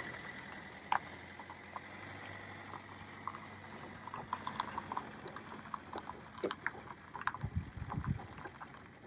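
A van's engine running as it drives away on a snowy road, its hum fading out over the first few seconds. Scattered light crunches follow, growing denser near the end, like footsteps in snow.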